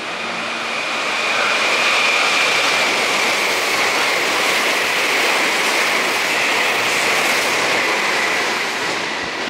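Red-and-white Meitetsu electric train running past the station platform at speed: a loud rush of wheel and air noise that builds about a second in and eases near the end, with a high whine that falls slowly in pitch.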